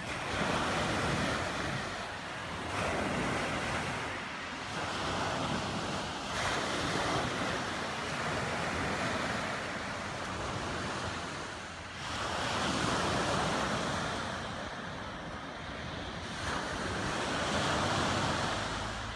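Sea surf breaking and washing up a beach, the rush swelling and easing every few seconds as each wave comes in.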